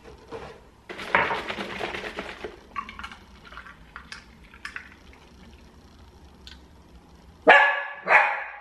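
Faint clinks and handling noises, then a dog barks twice near the end.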